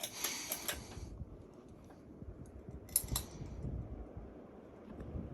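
Harbor Breeze Mayfield 44-inch ceiling fan running on high speed: a steady low whoosh of moving air, with a hissing rush over the first second and a shorter one about three seconds in.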